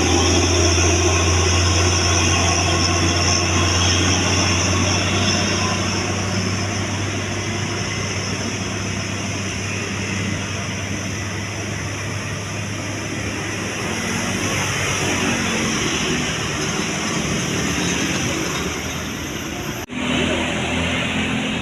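Heavy diesel tour bus engine running close by with road noise, loudest at first and easing off after about six seconds. The sound cuts out for an instant near the end.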